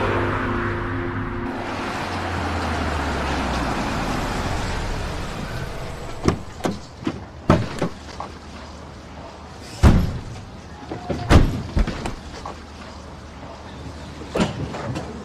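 Car running, with a steady low rumble over the first few seconds. Then comes a string of sharp knocks and clunks, car doors being opened and shut, the loudest near the middle.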